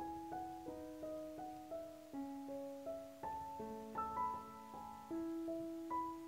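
Slow background piano music, a new note or chord struck every half second or so over held notes.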